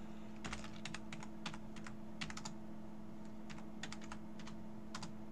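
Typing on a computer keyboard: irregular runs of quick keystroke clicks with short pauses between them, as code is entered.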